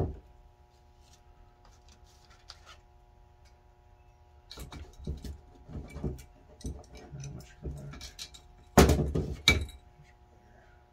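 Small metal carburetor parts clicking and clinking as they are fitted to an aluminium two-barrel carburetor body, with two louder knocks near the end as the body is set down on the bench. A faint steady hum runs underneath.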